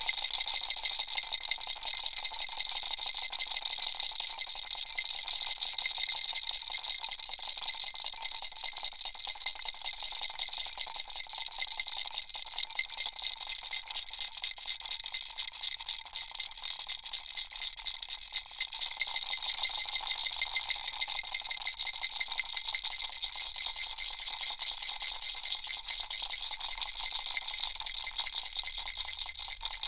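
Baby rattle being shaken continuously, its small beads making a steady, fast clatter of fine clicks.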